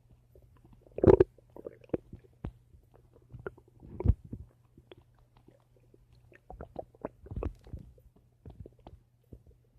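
Human stomach rumbling and gurgling: a string of short, irregular gurgles and pops, the loudest about a second in and again about four seconds in, over a steady low hum.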